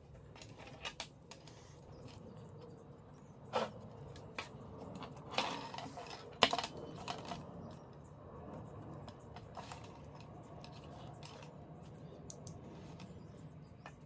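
Metal alligator clips and their wires being handled and set down on wooden boards: scattered clicks and light metallic clinks, the sharpest about six and a half seconds in.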